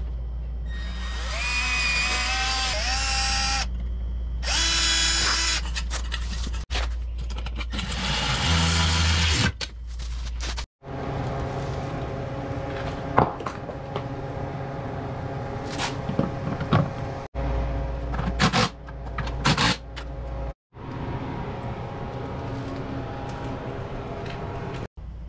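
Cordless drill driving fasteners in three short, loud whining runs whose pitch shifts, each cut off suddenly. After that comes a steadier hum with scattered clicks and knocks as parts are handled.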